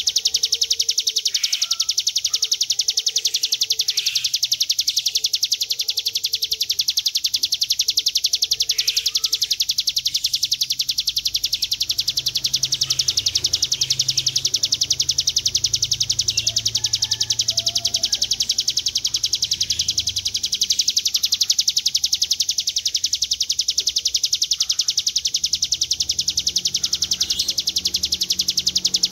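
Hill prinia (ciblek gunung) song in its long 'ngebren' form: a high, very rapid, even buzzing trill held without a break.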